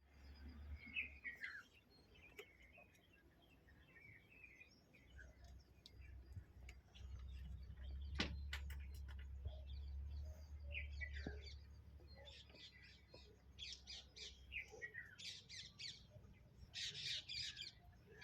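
Faint birds chirping and squawking, short calls and quick falling notes that grow busier in the second half. A low hum runs underneath through the middle, and a single sharp tap sounds about eight seconds in.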